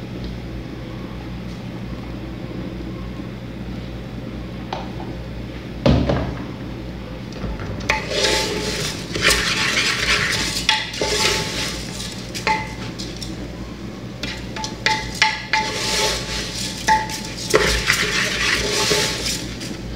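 A wooden spoon stirring and scraping rice against the side of an aluminium pressure cooker as it is sautéed in oil, in irregular strokes that start about eight seconds in. A single knock comes about six seconds in, over a steady low hum.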